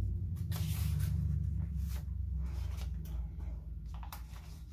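Paper pages and cardstock of a handmade journal rustling as they are handled and turned, in a series of short brushing sweeps over a steady low hum.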